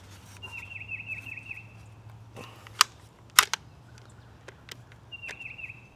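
Sharp metallic clicks and clacks from a Kel-Tec PLR-16 5.56 pistol's action being worked by hand to clear a double feed. The two loudest clacks come about three seconds in, with smaller clicks around them.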